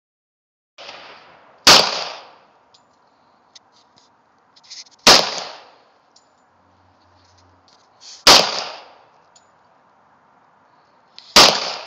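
Four gunshots about three seconds apart, each followed by a short echo.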